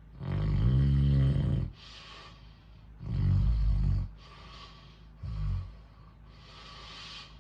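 A person snoring loudly: three rough, low snores, the first about a second and a half long, the second about a second, the third short, each followed by a softer airy breath. A fan runs steadily underneath.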